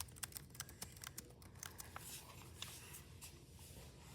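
Faint, irregular small clicks and light taps, several a second at first and sparser later, over a quiet room.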